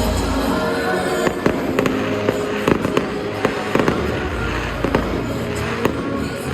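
Fireworks bursting in quick succession, with many sharp bangs and crackles starting about a second in, over music playing.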